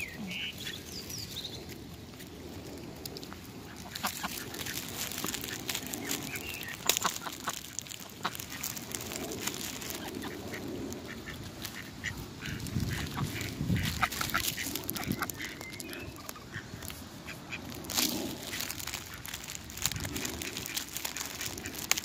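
Ducks quacking now and then, over scattered clicks and rustling.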